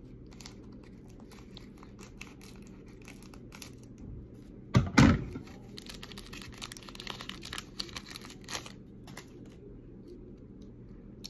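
Wrapper of a soccer card pack crinkling and tearing as it is opened, with scattered crackles throughout and one louder rustle about five seconds in.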